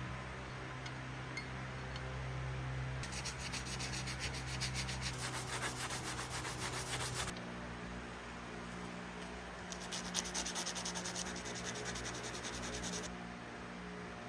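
Hand sanding, quick back-and-forth strokes at several a second, in two spells. The first starts about three seconds in and lasts about four seconds. The second comes near the end and lasts about three seconds.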